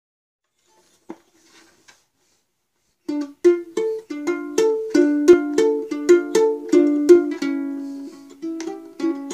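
Ukulele strummed in chords, starting about three seconds in after a near-silent pause with a faint tap. The strokes come about three a second, each chord ringing on.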